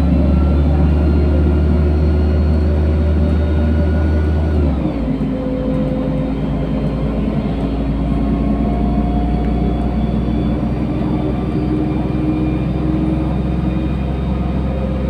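LiAZ-5292.67 city bus running, heard from inside the passenger cabin: a steady, loud low drone from the engine and drivetrain. About five seconds in, all its tones drop in pitch at once, then hold steady at the lower pitch.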